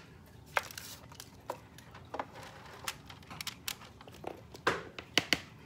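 Irregular light clicks and knocks of a serving spoon against food-prep containers as food is portioned out, with the sharpest two knocks close together near the end.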